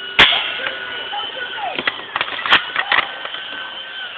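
Airsoft guns firing: one sharp loud snap just after the start, then a cluster of quieter clicks and snaps around the middle with another sharp shot among them, over a steady high-pitched tone in the background.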